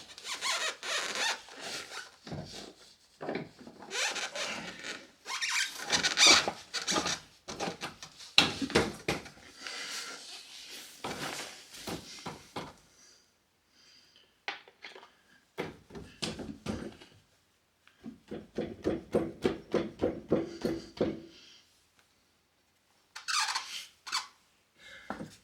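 Piaggio Fly scooter's front axle being pushed and worked by hand through the wheel hub and fork: repeated scraping and rubbing, then runs of rapid squeaks from metal parts rubbing together.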